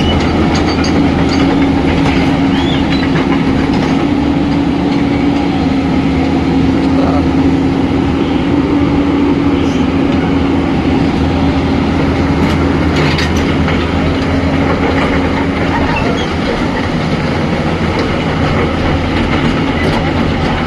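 Engine of heavy road-repair machinery running steadily, with a steady hum that drops away about 16 seconds in and a few scattered clanks.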